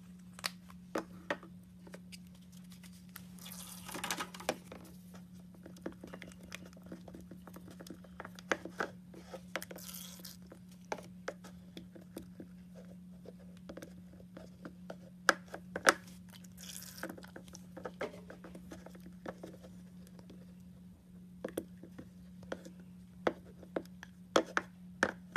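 Silicone spatula stirring a sticky glue slime mixture in a plastic bowl: irregular wet clicks, squelches and scrapes, over a steady low hum.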